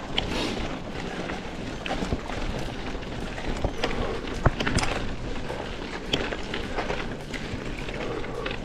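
Mountain bike ridden over a dirt road: steady tyre and wind noise with frequent small clicks, knocks and rattles from the bike over the bumps.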